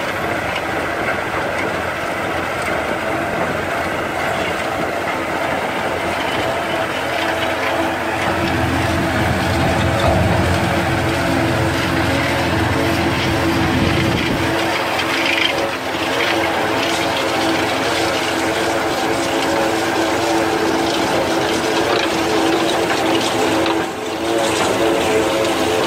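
Tractor engine running steadily under load as a front-mounted road-verge cutter churns its rows of spiked discs through turf and soil. A deeper rumble swells from about eight seconds in and fades around fifteen seconds.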